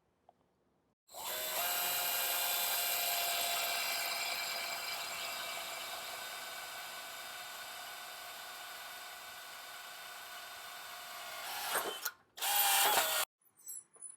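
Power drill running steadily for about ten seconds as it bores a hole to mount the 2x2 angle, stopping briefly, then running again for about a second near the end.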